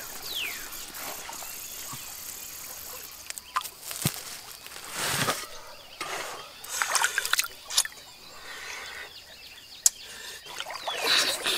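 A stream trickling steadily, with scattered knocks and scrapes, the loudest about five seconds in. A short falling whistle-like call sounds right at the start.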